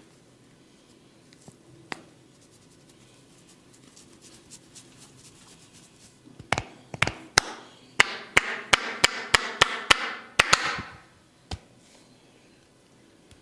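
Barber's hands during a head and neck massage making a run of about fourteen sharp cracks, starting about halfway through and coming up to about four a second, with a rubbing hiss between them near the end of the run.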